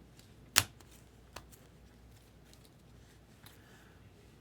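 Trading cards being handled on a table: one sharp tap about half a second in and a softer one about a second in, with faint card rustling between.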